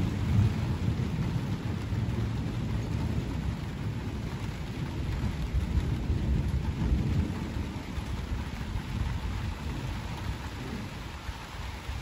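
Thunder rumbling low, loudest at the start and slowly dying away, over steady rain.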